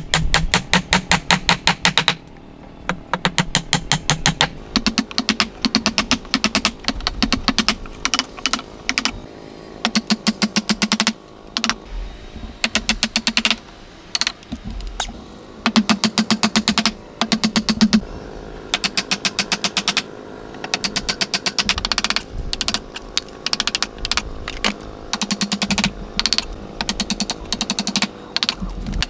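A chisel driven into a wooden block by quick, light hammer taps, in runs of rapid clicks about ten a second, each run lasting a second or two with short pauses between.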